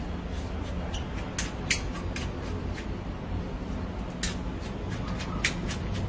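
Several sharp clicks from handling a pressure washer's plastic trigger spray gun and lance, over a steady low hum.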